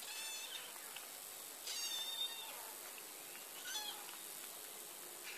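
Young kitten mewing in short, high-pitched cries while suckling from a feeding bottle: three mews, the longest and loudest about two seconds in.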